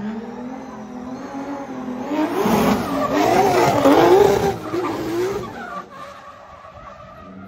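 A car drifting: its engine revving up and down while the tyres squeal and slide. It is loudest midway, as the car passes close, then fades as it moves away.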